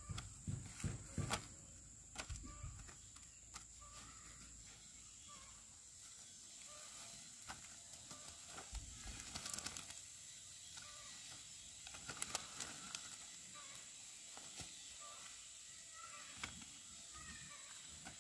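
Faint chicken clucking: short calls every second or so, with a few low thumps in the first two seconds and occasional sharp clicks.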